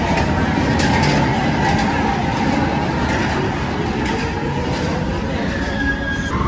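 Tomorrowland PeopleMover ride train rolling along its elevated track with a steady rumble.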